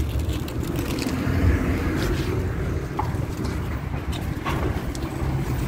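Wind buffeting the phone's microphone as an uneven low rumble, over faint outdoor street background, with a couple of light ticks.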